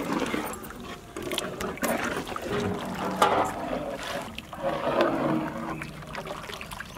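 Thin curry sloshing in a large metal pot as a perforated metal spatula stirs masala paste into water, in repeated swells with a few sharp scrapes and clicks of the spatula against the pot.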